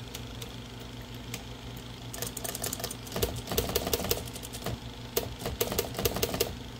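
Olivetti Lettera 36 electric typewriter running: a steady motor hum, and from about two seconds in, runs of rapid mechanical clacking. The mechanism is stiff with hardened old lubricant and needs cleaning.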